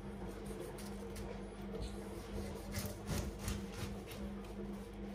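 Chef's knife sawing down through a pineapple on a chopping board, a string of short rasping strokes. A steady low hum runs underneath.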